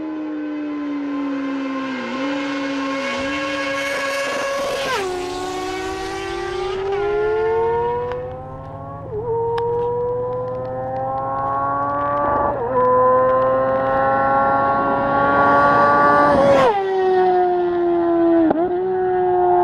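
Sport-bike engine accelerating hard through the gears: its pitch climbs steadily, then drops sharply at each upshift, several times over.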